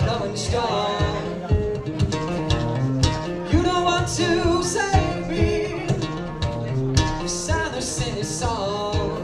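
Live song: a singer's voice over guitar with a steady beat about twice a second.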